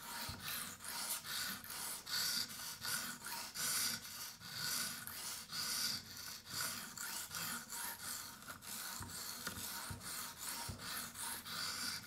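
A 220-grit Edge Pro sharpening stone stroked back and forth along the blade edge of a Swiss Army knife: a steady run of gritty scraping strokes, about two a second, working the bevel to raise a burr.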